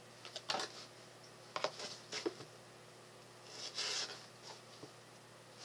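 Faint rustling and a few light clicks of items and packing being handled in a cardboard subscription box, with a soft papery rustle near the middle.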